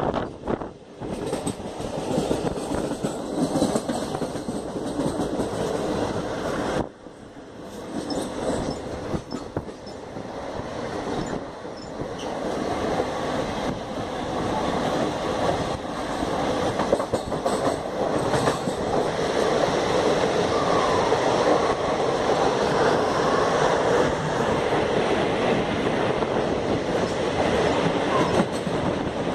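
Passenger train running along the line, heard from on board: a continuous noise of wheels on the rails, with a short drop about seven seconds in, then growing louder and staying loud through the second half.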